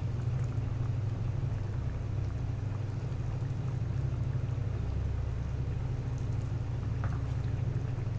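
Steady low hum of a kitchen stove over an onion-tomato gravy simmering on low flame, with a light tap near the end.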